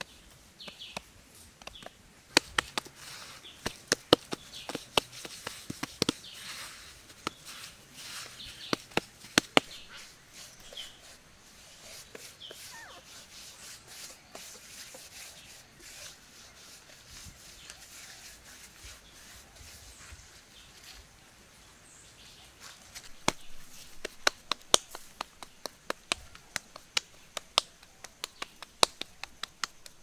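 Hands patting and slapping wet mud into shape, a quick run of sharp slaps in two spells, one in the first third and one near the end, with a quieter stretch between.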